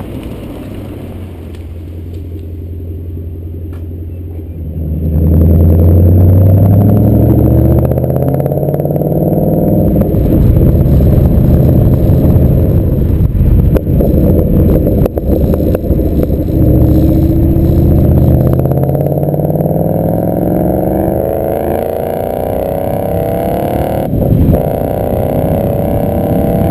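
Ford Mustang GT's 5.0-litre V8 through a Roush exhaust, running at low revs, then accelerating hard about five seconds in, its pitch climbing in repeated pulls as it shifts up. It eases off around twenty seconds in and pulls again more gently, with a short thump a couple of seconds before the end.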